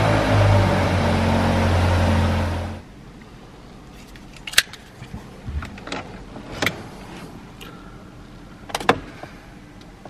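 2022 Volkswagen Tiguan 1.5 TSI four-cylinder turbo petrol engine idling steadily at the tailpipe, cutting off suddenly about three seconds in. After that it is quiet, with a few sharp clicks and taps.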